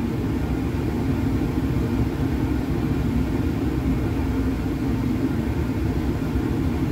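Steady rumble of laboratory ventilation airflow, with a faint constant hum.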